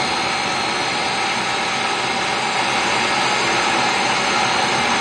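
Deckel milling machine running and milling a long metal drill blank with an end mill, a steady, even hiss with no pauses; the hiss of the air-mist coolant nozzle at the cutter is part of it.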